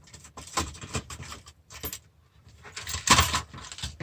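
Small metal parts and screws clinking and clattering while a DVD player's steel chassis is taken apart, a string of sharp clicks with a louder clatter about three seconds in.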